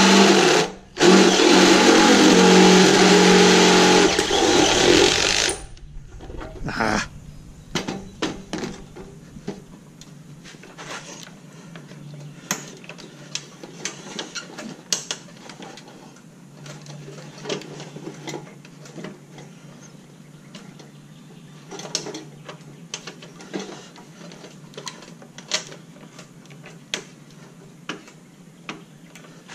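Cordless drill boring through the steel wall of an ammo can, running steadily at speed with a brief dip about a second in, then stopping about five seconds in. Scattered light metal clicks and knocks follow as small parts are handled at the can.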